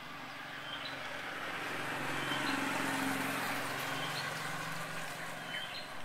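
A motor vehicle passing on the road: its engine and tyre noise build to a peak about halfway through and then fade away. Short high bird chirps repeat every second or two over it.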